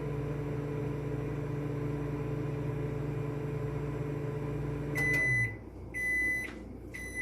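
Microwave oven running with a steady hum while cooking scrambled eggs; about five seconds in it shuts off and gives three short beeps at one pitch, about a second apart, signalling that the 45-second cook time is done.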